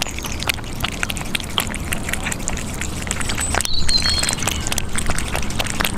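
Kittens eating, a steady run of wet smacking and chewing clicks, with a brief high squeak about four seconds in.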